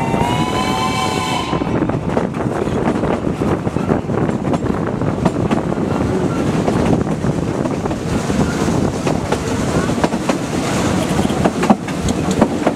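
Narrow-gauge steam locomotive's whistle sounding, rising slightly in pitch and stopping about a second and a half in. It is followed by the steady running noise of the train's carriages on the track, with scattered clicks from the rails, heard from aboard the train.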